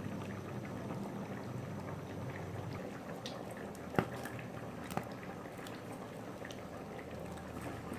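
Tamarind-pepper rasam heating in a pan on the stove, a soft steady bubbling with scattered small crackles. Two sharp taps come about four and five seconds in, and a low hum stops about three seconds in.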